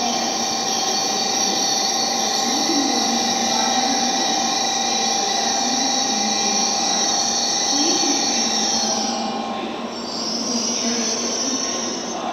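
Shinkansen trains at a station platform: a steady electrical whine and hum with a high-pitched tone over it. The high tone and the middle tone drop away about nine seconds in, and a high tone comes back shortly after.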